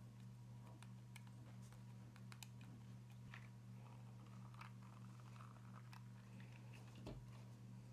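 Faint, scattered small clicks and taps of small parts being handled during hand assembly, with a slightly louder knock about seven seconds in, over a steady low hum.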